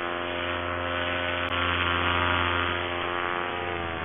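Paramotor engine and propeller running steadily in flight with a droning, many-pitched hum. Near the end the pitch and level fall as the engine slows.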